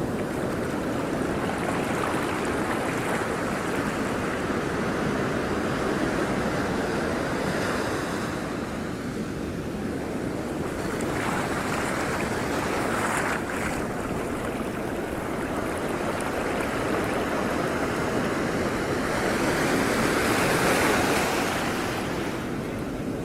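Steady rushing of wind and water with no engine tone, swelling about halfway through and again near the end.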